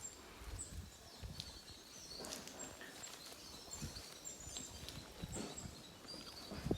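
Faint outdoor ambience: small birds chirping repeatedly in short high notes over a low rumble.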